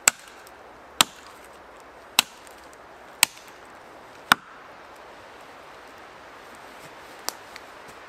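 Axe chopping into the trunk of a standing tree to fell it: five hard strikes about a second apart, then a single lighter knock near the end.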